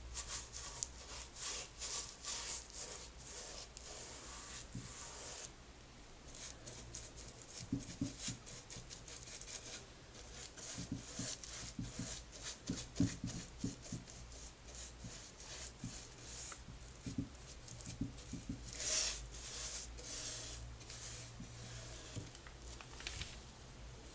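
Paintbrush bristles brushing paint onto a wooden chair in a run of short, scratchy strokes. From about eight seconds in, soft low knocks come in among the strokes.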